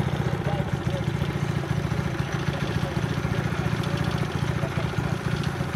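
Honda GX200 single-cylinder engine on a Yerf-Dog go-kart idling steadily.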